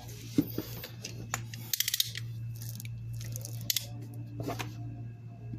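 A box cutter being handled and worked against a sealed cardboard phone box: a quick run of sharp clicks about two seconds in, with scattered clicks and short scrapes before and after. A steady low hum runs underneath.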